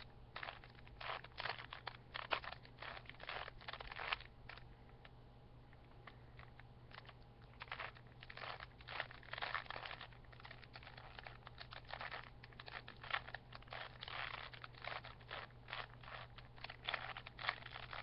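A 3x3 Rubik's cube being solved by hand: quick runs of plastic clicking and clacking as its layers are twisted. There is a pause of a couple of seconds about a third of the way through.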